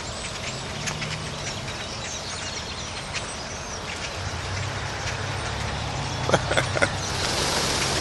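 A large flock of black birds calling, with many short high chirps overlapping over a low steady engine hum from the parking lot. A rushing sound swells near the end.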